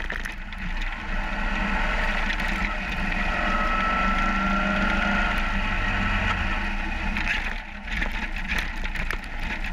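Ural motorcycle's flat-twin engine running steadily under way, heard from the bike's on-board camera, its note rising a little midway.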